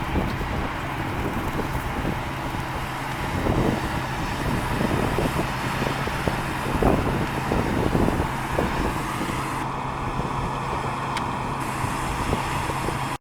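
An engine running steadily with a low, even drone, with gusts of wind buffeting the microphone.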